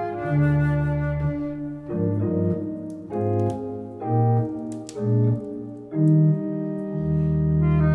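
Two-manual electronic organ played solo, a line of sustained chords over a bass part with the chords changing about every half second. Near the end it settles on a long held chord over a low bass note.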